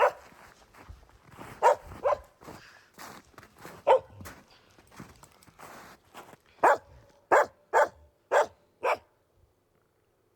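A dog barking in short, sharp single barks, about nine in all, with a quick run of five near the end.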